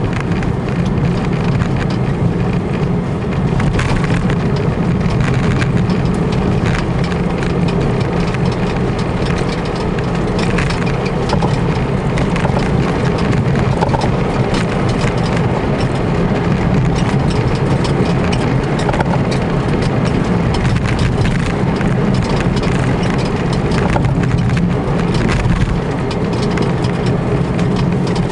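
Inside the cabin of a Citroën Visa II Spécial, its air-cooled flat-twin engine runs steadily as the car drives along, with road noise and frequent small clicks and rattles from the car.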